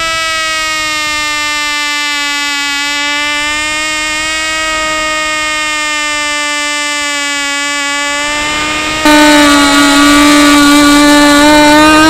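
Small model airplane engine on a sailplane's pylon power pod, running steadily at high revs with a buzzing whine whose pitch wavers slightly. About nine seconds in, the sound jumps louder and brighter.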